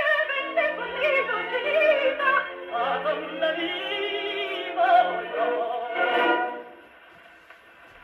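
Acoustic 78 rpm record from 1927 played on a Columbia 113a wind-up portable gramophone: a mezzo-soprano voice with orchestra in the closing bars of the song. The music ends about seven seconds in, leaving a faint steady hiss of surface noise from the needle in the groove. The sound is thin and lacks any top end above about 4 kHz.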